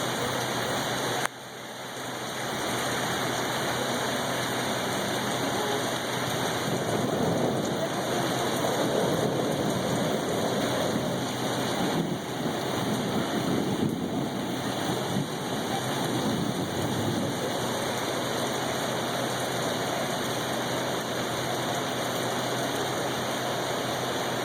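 Steady rain falling. The sound drops off suddenly about a second in and builds back up over the next couple of seconds.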